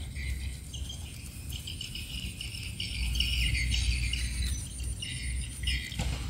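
Insects chirping steadily, a thin high whine with choppy chirps beneath it, over a low rumble.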